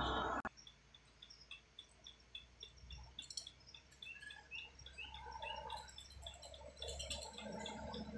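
Car engine and tyre noise that cuts off abruptly about half a second in. Then a quiet roadside with short high chirps repeating a few times a second, and a distant truck engine growing louder from about five seconds in.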